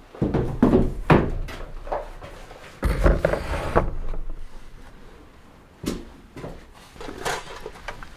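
A series of knocks and thuds, with a short burst of rumbling noise about three seconds in.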